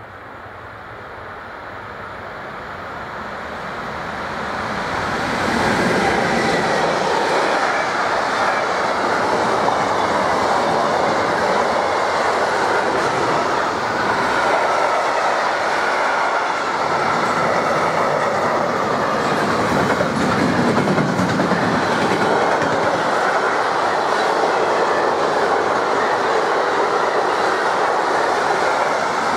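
Long mixed freight train hauled by a class 185 electric locomotive, approaching and then passing close by. It grows louder over the first five or six seconds, then holds as a steady, loud rumble of freight wagons whose wheels clatter over the rails.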